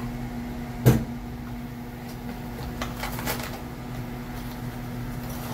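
Steady low machine hum, with one sharp knock about a second in and a few lighter clicks around the middle.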